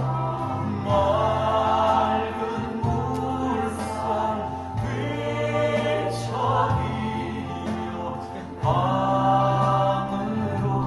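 Music: voices singing slow, held phrases, choir-like, over a sustained low accompaniment, in a slow Korean-language song.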